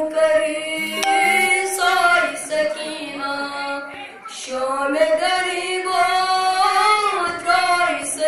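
A boy sings a devotional chant solo and unaccompanied into a microphone, holding long wavering notes, with a brief pause about four seconds in.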